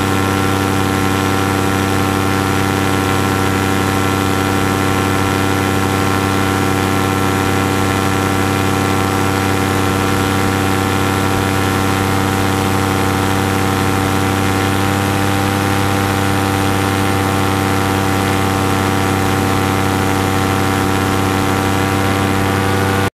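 Paramotor engine and propeller running at a steady throttle in flight, heard close up from the motor frame, holding one even pitch. The sound cuts off suddenly at the very end.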